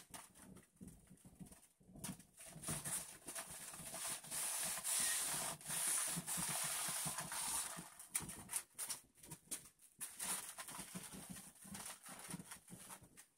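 Handheld garment steamer hissing as it pushes steam into a fabric curtain, with the hiss strongest for a few seconds in the middle. Short knocks and rustles come from the curtain fabric and the steamer being moved against it.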